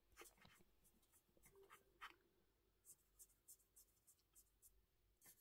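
Very faint fingertip taps and rubbing on a pressed-powder blush palette: scattered soft clicks and scratches, settling into about three light taps a second in the second half.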